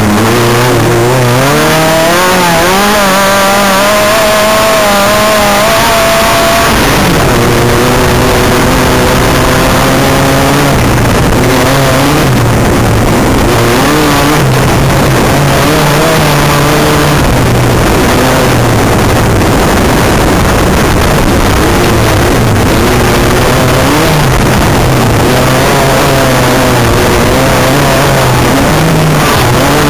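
Off-road race buggy's engine heard from inside the cockpit while racing, loud throughout, its revs climbing and falling with the throttle and dropping sharply about seven seconds in. It runs over a heavy, constant rush of noise.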